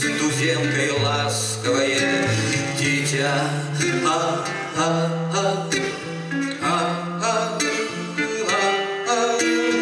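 A man singing to his own acoustic guitar, the strings plucked with changing low bass notes under the melody.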